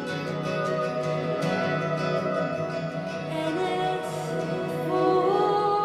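Slow acoustic song with fingerpicked guitar and a voice singing, heavily reverberant like a large empty arena.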